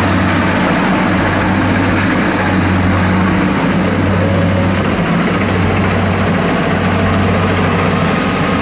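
Rice combine harvester's engine running steadily under load as it cuts and threshes standing rice: a constant low hum with a broad machinery noise over it.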